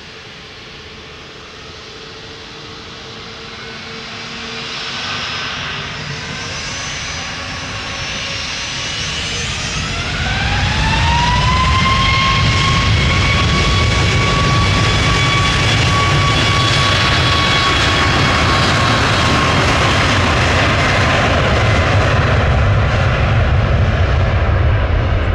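Jet aircraft engines spooling up to high thrust. A whine rises in pitch about ten seconds in, then holds steady over a loud, steady roar.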